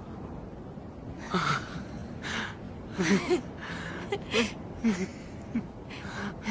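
A woman laughing tearfully: short, breathy, gasping bursts of laughter and sobbing, starting about a second in.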